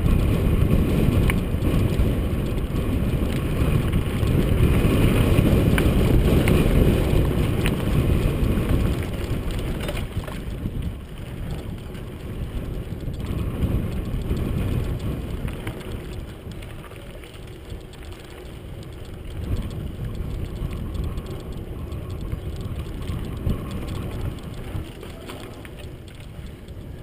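Riding noise from a mountain bike on a dirt singletrack: a steady rumble of wind on the microphone and tyres on the trail, with the bike's rattling and a few sharp clicks. It is loudest for the first several seconds and eases after about ten seconds.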